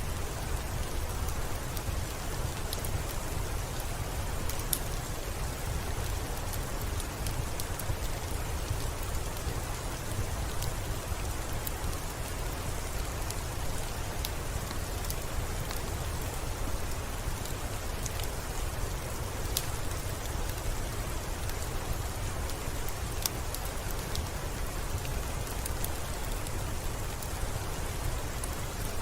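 Steady rain, an even hiss over a low rumble, with scattered sharp drop ticks throughout.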